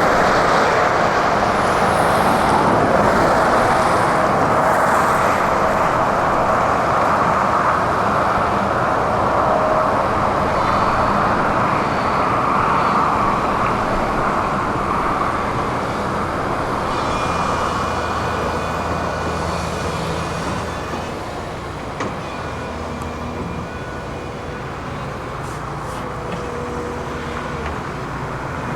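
Heavy diesel construction machinery running with a steady engine and hydraulic noise, with faint whining tones. It gets somewhat quieter in the last third, and there is one sharp knock about 22 seconds in.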